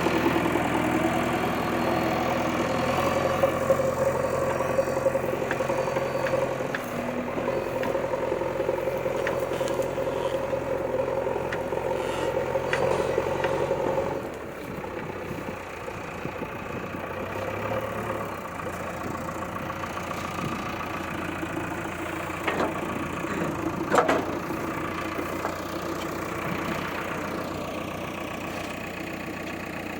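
Engine of a JCB-type construction machine running steadily. It drops in level about halfway through, and there is a single sharp knock later on.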